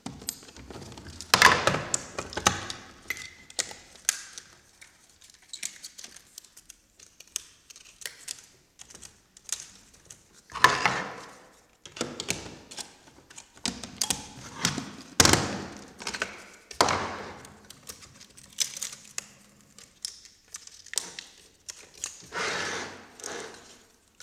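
Hands handling an ARRI 416 16mm film camera magazine: an irregular run of clicks, knocks and taps as its latches and lid are worked, with a few longer handling noises.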